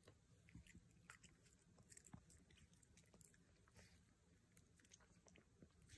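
Teething French bulldog puppy gnawing on a frozen carrot: faint, irregular crunching bites and scraping clicks of teeth on the hard carrot.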